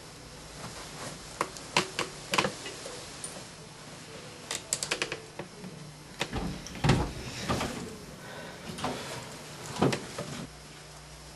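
Irregular knocks and clicks, with a quick rattle of several clicks about halfway through and a few dull, deeper thumps later, over a steady low hum.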